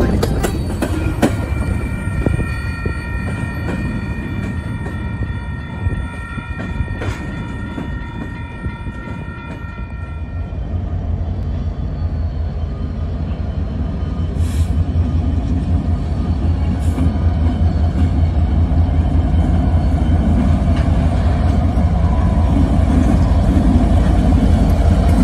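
Union Pacific diesel-electric locomotives approaching and passing slowly, their low engine rumble growing louder from about ten seconds in. Before that, several steady high-pitched tones ring together for about ten seconds, then stop.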